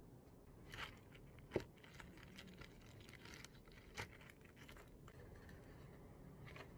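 Thin plastic bag of eggshells being handled, with faint rustling and a few short sharp knocks; the loudest knock comes about a second and a half in.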